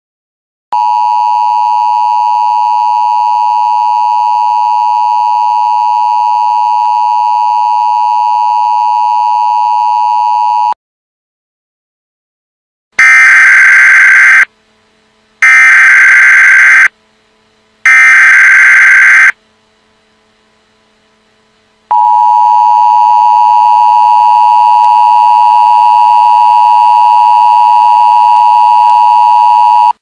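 Emergency Alert System broadcast signals: a loud, steady, buzzy attention tone for about ten seconds, a pause, then three short, harsh data-header bursts about a second apart, and the steady attention tone again from about two-thirds of the way through.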